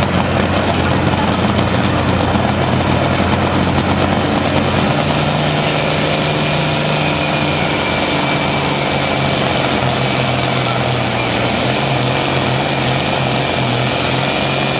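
Allis-Chalmers 190 XT tractor's turbocharged diesel engine running hard under load in a tractor pull. Its pitch steps up about five seconds in, and a thin high whistle joins soon after.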